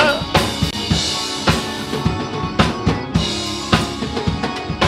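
Live drum kit playing a gospel praise groove, bass drum and snare hits in a steady beat, over held keyboard chords in the gap between sung lines.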